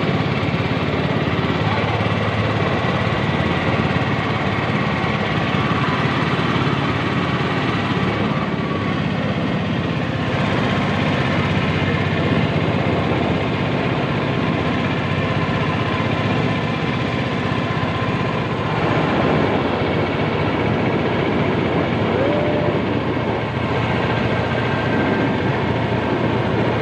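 Engine of a wooden river boat running steadily under way, a loud continuous drone that does not change in level.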